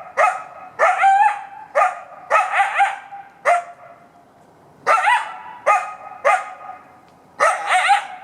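Coyote barking over and over: short, sharp barks, some drawn up into rising yelps, in irregular bursts with a pause of about a second midway.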